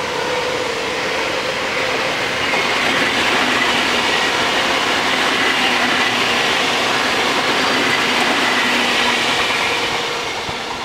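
Odakyu express trains passing on electric rail: the LSE 7000 series and the EXE 30000 series going by in opposite directions. Their wheels on the rails make a steady running noise with faint steady tones under it, which fades near the end as the EXE pulls away.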